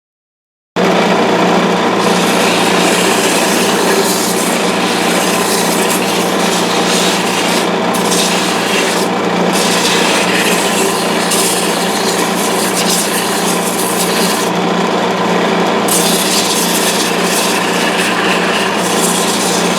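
Wood lathe running with a steady hum while a handmade sanding block rubs against the spinning wooden finial, a continuous rasping. The sound cuts in abruptly just under a second in.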